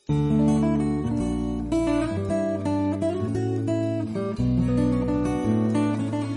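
Background music led by strummed acoustic guitar, starting suddenly at the beginning.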